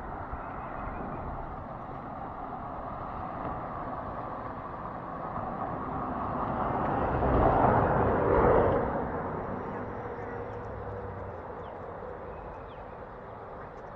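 A vehicle passing by: a steady noise that builds to a peak about eight seconds in, then fades away.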